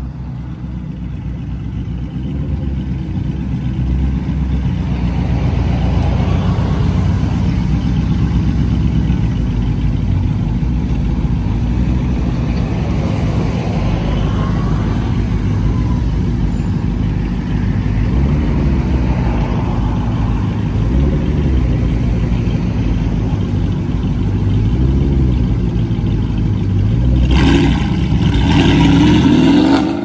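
Audi R8 supercar engine running loudly, its pitch rising and falling with repeated revs. Near the end it surges louder with a rising note as the car accelerates.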